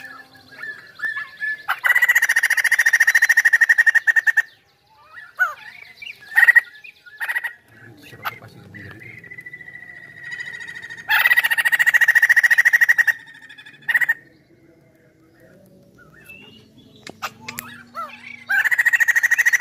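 Caged white-crested laughingthrush calling: three loud bursts of fast chattering, each about two seconds long, with short single notes between them. The last burst starts near the end.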